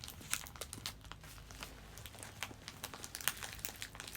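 A taped mail package being worked open by hand: its packaging crinkling and tearing in irregular crackles.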